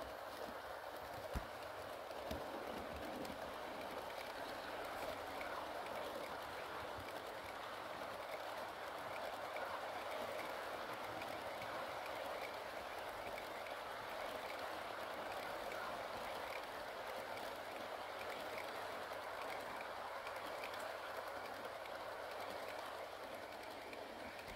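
H0-scale model freight train running on the layout track: a steady whirring, rolling noise from its motor and wheels. A sharp click comes about a second and a half in, with a few fainter ticks shortly after.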